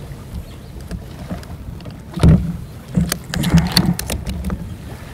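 Double-bladed paddle strokes from a Jackson Kilroy fishing kayak: the blades splash in the water, with sharp knocks about two seconds in and a cluster of them around three and a half seconds in. A low rumble of wind on the microphone runs underneath.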